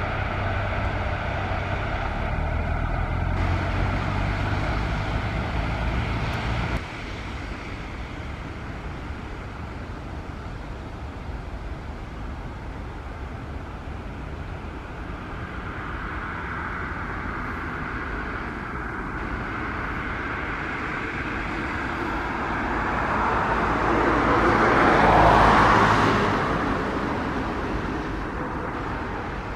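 A train passing close by: its rumble builds slowly over many seconds, peaks loudly near the end and then begins to fade. Earlier, about 7 seconds in, a steady running sound with a low hum cuts off abruptly.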